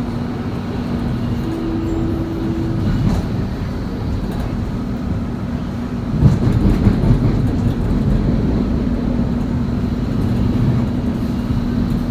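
Doha Metro train heard from inside the carriage, running with a steady low rumble and hum. About six seconds in the rumble gets louder and rougher with some rattling, then settles back.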